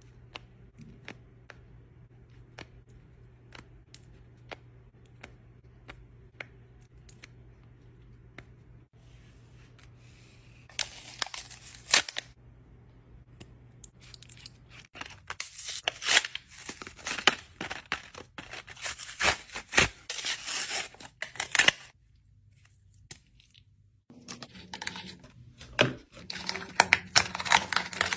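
Close-up handling of foam, small toys and packaging: faint, separate clicks about every half second for the first several seconds, then stretches of crinkling and tearing, the loudest in the middle and again near the end as a small box's paper seal is pulled open.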